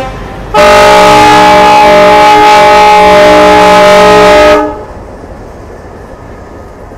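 Diesel locomotive's air horn sounding one long, loud blast of about four seconds, several tones held together, then cutting off sharply and leaving the train's running noise.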